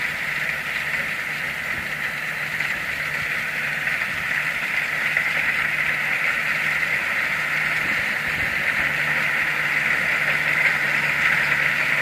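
Kubota DC60 rice combine harvester running steadily as it cuts and threshes standing rice: a steady low engine hum under a constant high whine, growing slightly louder as the machine draws nearer.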